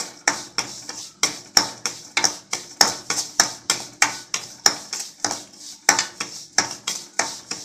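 A spoon clinking and scraping against a stainless steel kadai in quick regular strokes, about three a second, as semolina and cashews are stirred while dry-roasting on a low flame.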